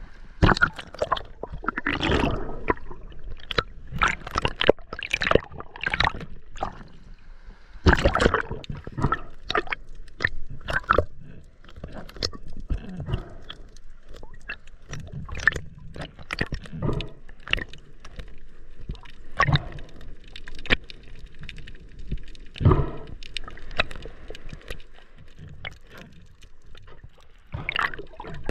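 Water sloshing and splashing in irregular bursts, with gurgling in between.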